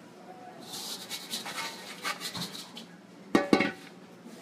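A plastic bowl scraper scraping dough out of a stainless steel mixing bowl: a run of scrapes, then two sharp knocks close together about three and a half seconds in.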